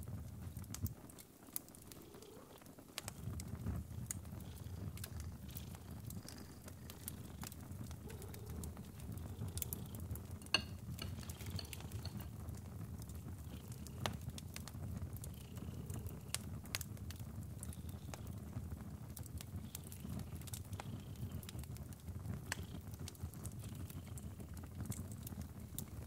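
Wood fire crackling in a fireplace: scattered sharp pops and snaps over a steady low rumble, with one sharper snap about ten seconds in.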